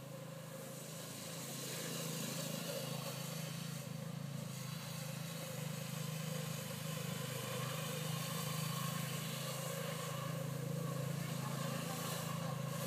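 Small youth snowmobile engine running steadily as it rides across the snow, getting louder over the first two seconds and then holding steady.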